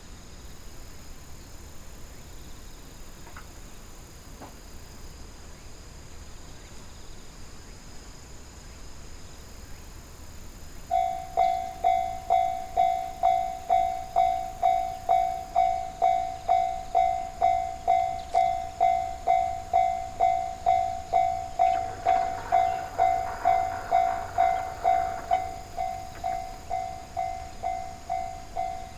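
Japanese railway level-crossing warning bell starting about eleven seconds in and ringing at a steady two strikes a second, the signal that a train is approaching. A short rushing noise joins it for a few seconds in the middle. Before the bell there is only faint, steady insect trilling.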